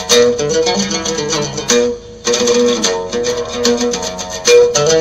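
Oud playing an instrumental phrase of quick plucked notes, with a short break about two seconds in.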